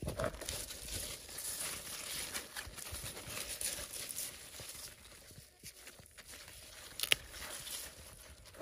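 Cucumber vines and leaves rustling and crackling as they are pushed aside and handled while cucumbers are picked, with scattered small snaps and one sharper click about seven seconds in.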